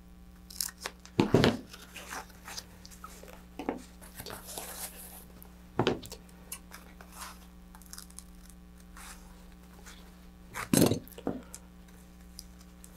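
Sheet of thin polyethylene packing foam being handled and cut with a hobby knife: scattered rustles and crinkles, with louder ones about a second in and again near the end.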